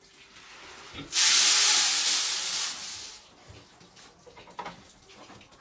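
Dry powdered pig feed poured from a plastic basin into a metal hopper feeder: a loud rushing hiss that starts about a second in and lasts about two seconds, then trails off.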